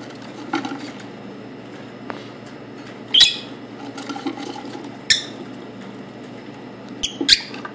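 Parrot giving short, sharp calls: one about three seconds in, one about five seconds in, and two close together near the end.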